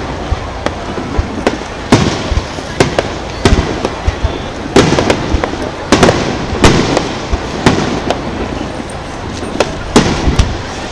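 Aerial firework shells bursting in the sky: a string of sharp bangs at uneven intervals, several coming in quick succession.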